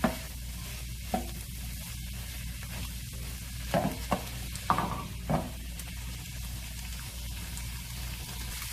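Sliced green bell peppers, onion and mushrooms sizzling in oil in a frying pan, stirred with a wooden spatula that scrapes and knocks against the pan several times, loudest in a run of four knocks about four to five and a half seconds in.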